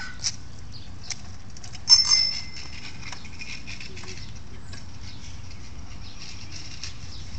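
A bicycle bell rings once, briefly, about two seconds in, over steady outdoor background noise.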